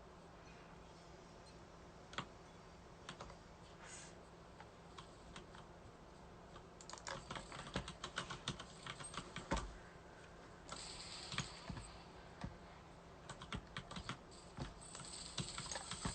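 Light, scattered clicks and taps like typing, thickening into quick runs of clicks about seven seconds in and again near the end, with a faint hiss.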